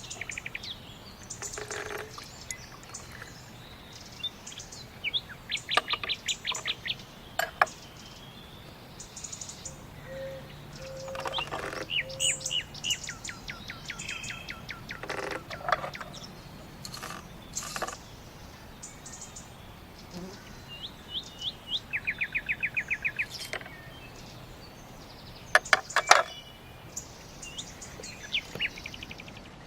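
Several garden songbirds singing and calling: short chirps, trills and quick runs of repeated high notes, coming and going from different birds.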